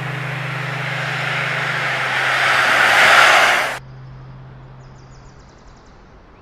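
An SUV driving past on a road, its tyre and engine noise swelling as it comes closer, then cut off abruptly about four seconds in. A low steady hum runs underneath, and after the cut there is only faint outdoor ambience.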